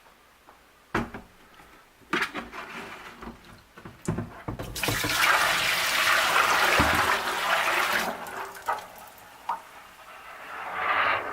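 Dirty cleaning water splashing and then rushing out for about three seconds, after a few knocks and small splashes. Running water starts up again near the end.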